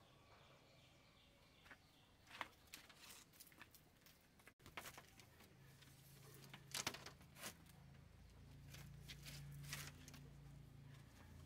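Faint scattered clicks and light taps, with a low steady hum coming in about halfway through.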